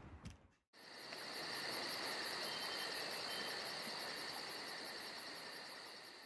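Singing insects: a steady, high-pitched trill with a fast, regular pulse, starting about a second in after a brief silence.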